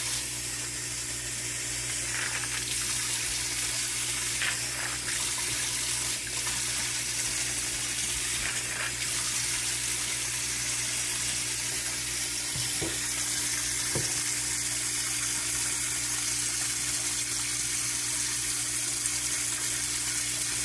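Kitchen tap running water into a stainless steel bowl of dry dog kibble to soak it, a steady rush of water, with a faint steady hum underneath.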